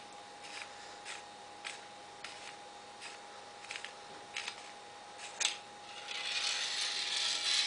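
The threaded outer barrel of a KJW M700 airsoft rifle being unscrewed by hand, giving repeated light clicks. Near the end comes a scraping rub as the inner barrel slides out of the outer tube.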